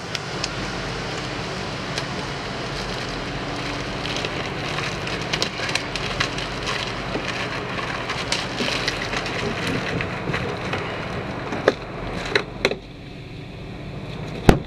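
Crinkling and crackling of a plastic-wrapped air-conditioning duct and duct tape as hands press and fit a vent outlet, with a few sharp taps near the end before it stops.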